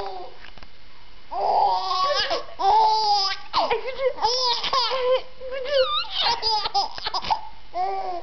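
A baby laughing in a string of high-pitched bursts, starting about a second and a half in.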